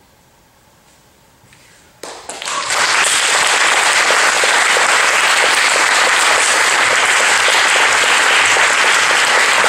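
Audience applause breaking out about two seconds in, building within a second to loud, steady clapping.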